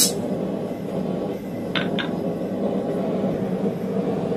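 A sharp metal clink as the steel top die of a blacksmith's guillotine tool is handled, then two lighter metal clinks close together about two seconds in. A steady mechanical hum runs underneath.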